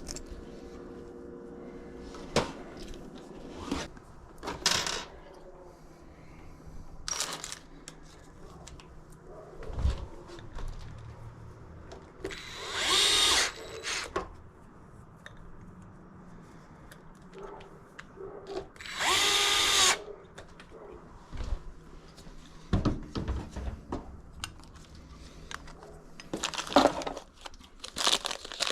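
Power drill running in two short bursts of a second or two each, about twelve and nineteen seconds in, its pitch rising as each run starts. Scattered clicks and knocks of hardware being handled come between the runs.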